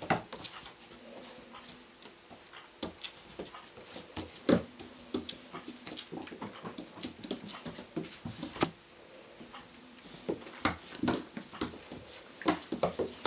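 Two Magyar agar puppies play-fighting on a laminate floor: irregular clicks and taps of claws and paws, the sharpest about four and a half and eight and a half seconds in, with short puppy vocal noises now and then.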